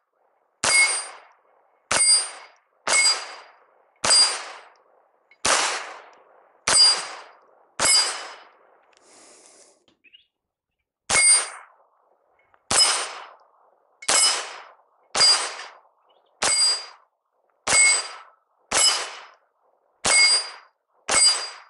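Smith & Wesson Model 422 .22 LR pistol firing shot after shot, about one a second, each a sharp crack with a bright metallic ring of steel targets being hit. There is a pause of about three seconds in the middle before the shooting resumes.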